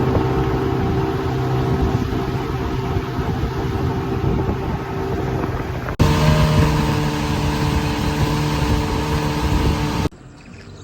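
Motor of a river boat running steadily, with a rush of wind and water over it. It breaks off sharply about six seconds in and picks up again at once, then cuts to a much quieter sound near the end.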